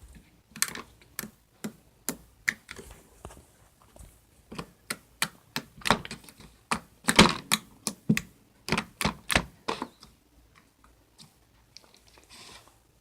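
Jiggly slime being pressed and played with, making a series of sharp clicks and pops, about two a second, that thin out to a few faint ones after about ten seconds.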